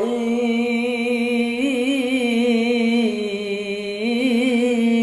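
A man reciting the Qur'an in a slow, melodic style, holding one long ornamented vowel of the basmala. The pitch wavers, steps up and falls back twice.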